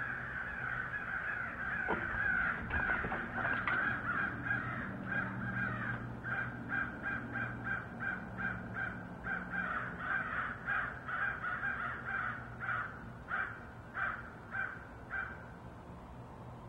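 Crows cawing over and over, many calls overlapping at first, then separate caws two or three a second, stopping about fifteen seconds in: crows mobbing, harassing something out in the trees.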